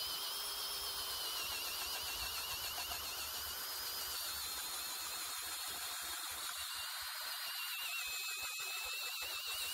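Kobalt 24V brushless drill turning an 18-inch auger bit in low gear: a steady high whine that wavers in pitch as the motor works under load.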